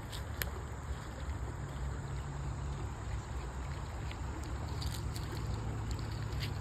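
Water flowing steadily over a constant low rumble, with a few faint clicks.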